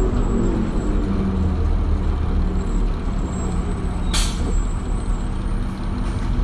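A 2001 New Flyer D40LF bus's Detroit Diesel Series 40 inline-six diesel running with a steady low drone, its pitch easing down just at the start. About four seconds in comes one short, sharp hiss of air from the air brakes.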